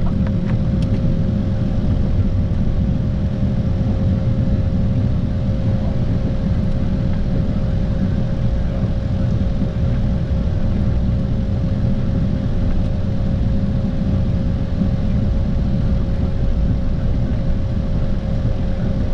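Steady cockpit noise of a business jet taxiing on idle engine power: a continuous low rumble with a steady, even-pitched whine over it.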